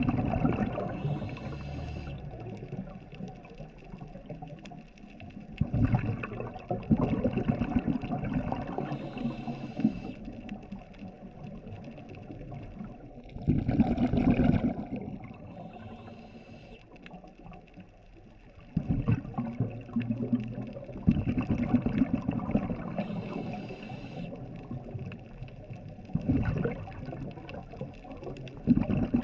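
Scuba diver breathing through a regulator underwater: a short hiss of inhaled air about every seven seconds, each followed by a long rumble of exhaled bubbles.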